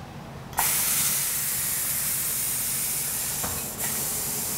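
Loud, steady hiss like a jet of gas escaping, starting abruptly about half a second in, with a second sharp surge near the end.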